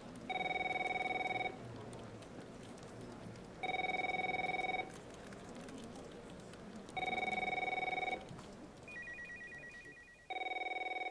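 Electronic telephone ringing in a steady pitched tone: three rings of about a second each, a few seconds apart, then a fast warbling trill and one more ring that cuts off near the end.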